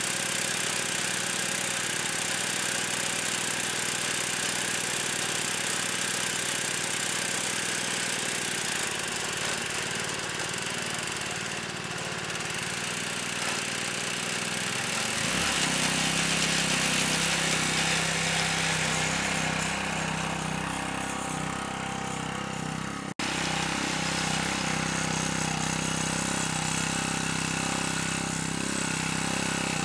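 Small gasoline lawnmower engine running steadily. About halfway through its note shifts and then settles again.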